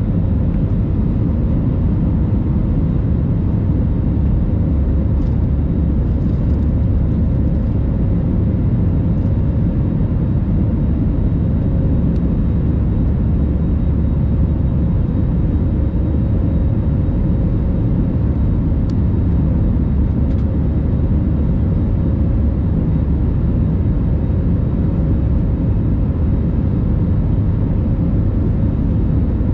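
Airbus A321 cabin noise in flight: a steady, deep drone of jet engines and rushing air heard from a window seat, with a faint steady hum on top.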